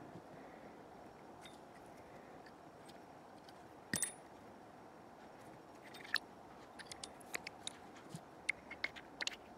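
Light clicks and taps of small brake master cylinder parts (steel piston, rubber seals, return spring) handled and fitted together by hand. One sharper knock about four seconds in, then a run of quick light clicks near the end, over a faint steady background hiss.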